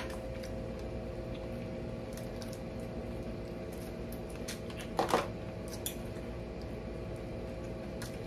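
Eating noises from a seafood meal: small clicks, clinks and wet squishes of shells and utensils, with a sharper knock or two about five seconds in, over a steady low hum.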